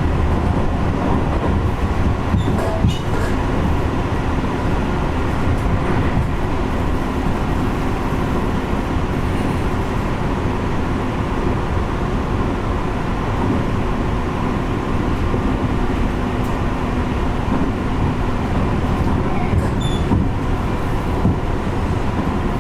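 Tobu 50090-series electric train running at steady speed, heard from inside the passenger car: a continuous rumble of wheels on the rails with a faint steady motor hum that comes and goes, and a few light clicks.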